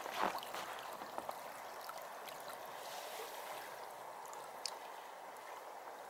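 Fast-flowing river water rushing steadily, a strong current that keeps this stretch of river from freezing.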